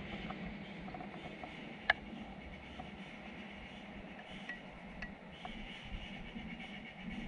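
Quiet outdoor background hiss with one sharp click about two seconds in and a few faint ticks later on.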